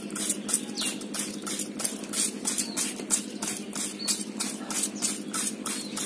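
Hand trigger spray bottle squirting water in quick repeated pumps, about three squirts a second, drenching a bird in its cage.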